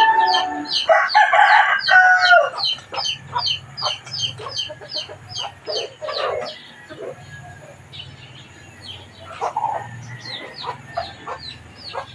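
A rooster crowing about a second in, followed by scattered chicken clucks, over a steady run of quick high chirps repeating about three times a second.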